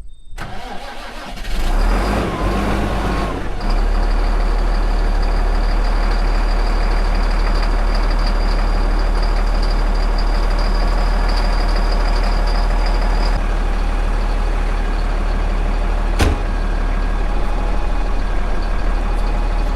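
Tractor diesel engine running steadily after building up over the first few seconds, with a thin steady high whine through the middle and one sharp click about 16 seconds in.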